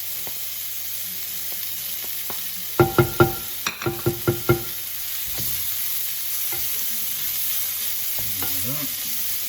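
Browned chicken and ginger sizzling in a frying pan while being stirred. About three seconds in comes a quick run of about seven sharp, ringing metallic knocks, a utensil rapped against the pan.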